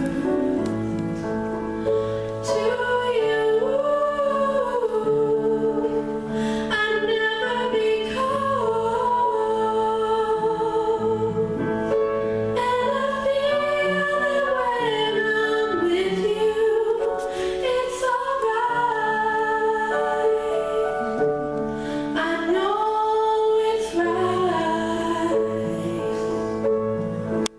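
A woman singing a slow ballad with vibrato over sustained instrumental accompaniment.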